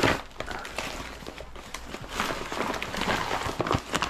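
Brown paper wrapping being torn and crumpled off a taped cardboard parcel: a run of crackles and rustling, busiest about two to three seconds in.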